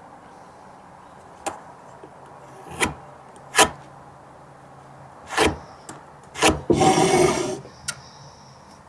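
Cut hardwood boards being handled: a series of separate wooden knocks as pieces are set down and bumped together, and about seven seconds in, one board scraping briefly against another.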